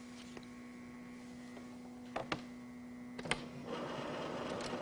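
Office photocopier running: a steady hum with a few sharp clicks about two and three seconds in, then a louder whirring starting near the end.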